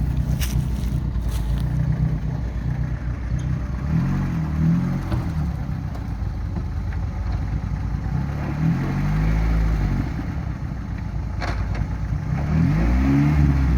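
Lada Niva VAZ-21218 engine driving off-road, rising and falling in revs three times as the driver applies and eases the throttle. There are a few short knocks and scrapes, the clearest one near the end.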